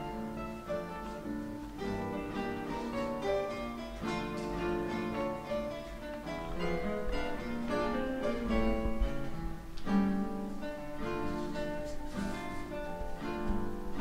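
A quartet of nylon-string classical guitars playing together, a melody over plucked accompaniment in a swing, jazz-style arrangement.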